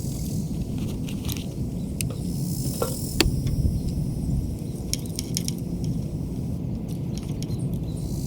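Light metallic clicks and scrapes from hands and tools working wires and screws in a metal outlet box, over a steady low rumble. A sharper click stands out about three seconds in.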